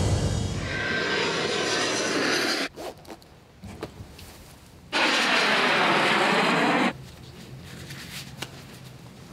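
Two loud bursts of jet-engine rush, each cut off abruptly, the second with a swishing sweep in its tone. Between and after them come quieter clothing rustle and a zipper.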